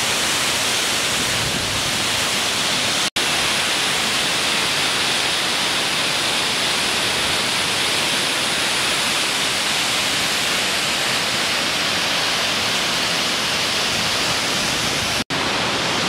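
Waterfall's falling water, a loud, steady rush close to the microphone, broken twice by an instant of silence, about three seconds in and just before the end.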